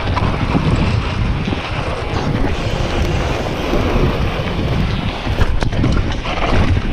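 Wind buffeting the microphone as a rider moves along a trail: a loud, steady rumble, with a few brief knocks about five and a half seconds in.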